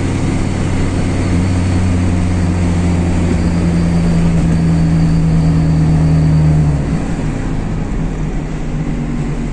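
Car engine and road noise heard from inside the cabin while driving. The engine note holds and climbs slightly as it pulls, then drops away suddenly about seven seconds in.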